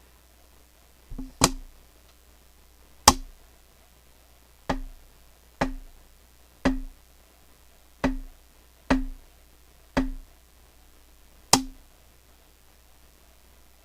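A series of about ten sharp knocks at uneven intervals, each followed by a brief low ring, serving as the hit sounds of a stop-motion toy wrestling fight; the first comes as a quick double knock.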